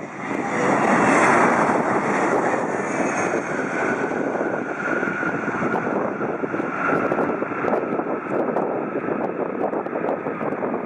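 Boeing 767-300ER twin-jet landing. The engine noise is loudest about a second in, around touchdown, then settles into a steady rumble with a faint whine as the airliner rolls out and slows on the runway.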